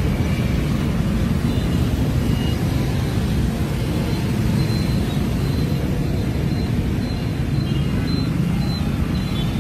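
Dense motorbike street traffic: a steady rumble of many small engines.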